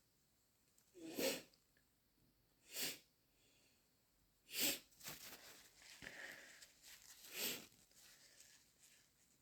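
Congested, stuffed-up nose from a head cold sniffling: four short, sharp sniffs spread over several seconds, with softer noisy breathing between the third and fourth.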